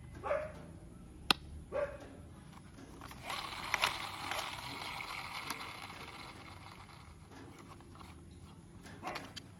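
Hard plastic toy-car parts being handled and pressed together: one sharp snap about a second in, then a few seconds of plastic rubbing and scraping with small clicks. Short high yelps sound just after the start and again near the end.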